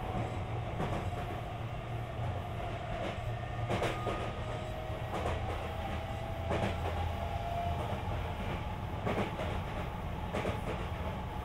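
Sotetsu 20000 series electric train running at speed, heard inside the carriage: a low rumble of wheels on rail with irregular clacks over rail joints. A faint whine from its Hitachi SiC-VVVF traction drive rises a little in pitch about midway.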